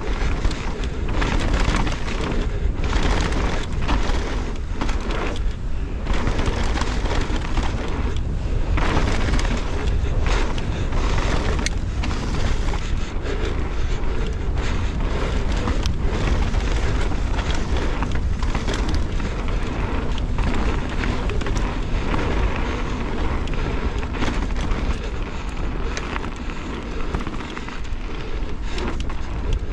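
Mountain bike running fast down a dirt and gravel trail: continuous tyre and wind rumble with constant knocks and rattles of the bike over bumps, and wind buffeting the action camera's microphone.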